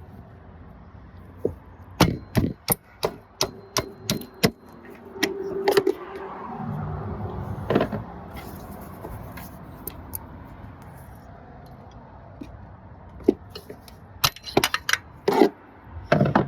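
A hammer knocking sharply against a ratchet on the idler pulley bolt to break the bolt loose. There is a run of about eight quick knocks about two seconds in, a few single ones, and another run near the end.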